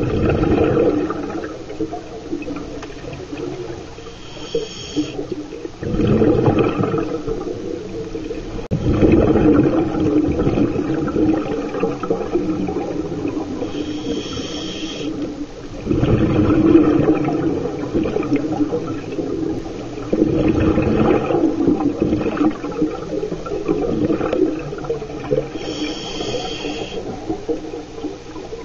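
Scuba diver breathing through a regulator underwater: three short, hissing inhales about ten seconds apart, each followed by long rumbling gushes of exhaled bubbles.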